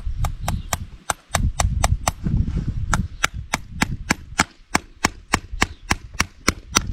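A farrier's hammer tapping in a steady rapid series of sharp, dry blows, about four a second.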